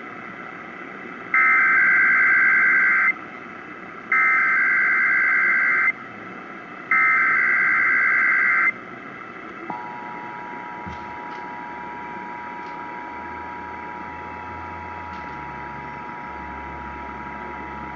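Emergency Alert System SAME header over AM radio: three identical bursts of screeching data tones, each under two seconds long and about a second apart. About ten seconds in, the EAS two-tone attention signal (853 and 960 Hz together) starts and holds steady, over constant radio hiss.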